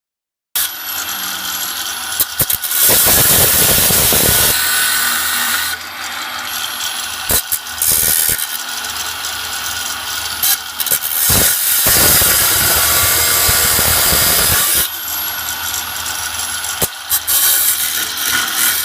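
Power grinder grinding metal from the coach's front structure. It starts about half a second in, runs on with brief dips, and gets louder in stretches as it bears harder into the work.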